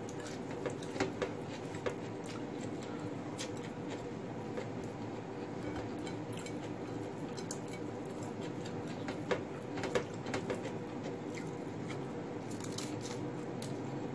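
Close-up eating sounds: chewing raw lettuce leaves with fried fish and rice, with small clicks and taps scattered through as fingers pick food from the plate, over a steady hum.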